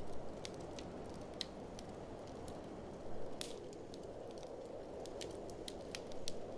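Wood fire crackling in an open fireplace: irregular sharp pops and snaps over a steady low rush, with a few louder crackles near the start, about three seconds in, and near the end.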